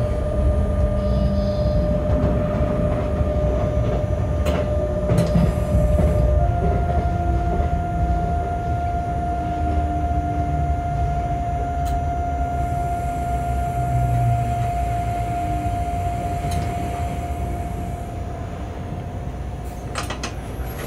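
Locomotive cab interior on the move: a steady rumble of wheels on rail, with a steady whine that steps up in pitch about six seconds in. A few sharp clicks come from the wheels passing rail joints or points. The sound eases off a little near the end as the loco slows.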